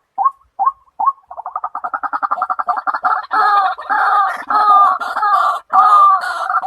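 White-breasted waterhen calling: a few separate calls about three a second, then from about a second in a fast run of notes that builds into a loud, continuous stretch of overlapping calls.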